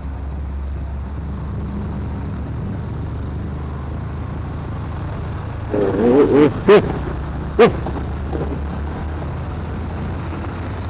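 Motorcycle riding in slow, congested traffic: a steady low engine drone with road and wind noise from the rider's position, with large trucks running alongside. A short burst of vocal sounds comes a little past halfway.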